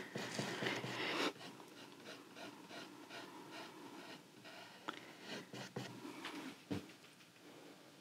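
Faint scratchy rubbing of a paintbrush laying thick black acrylic onto canvas, with a few light taps in the second half.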